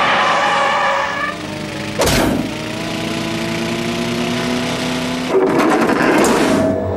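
Cartoon car sound effects over music: a sharp thump about two seconds in as the car comes down, then a long, slowly rising tone and a noisy rattling burst about five seconds in.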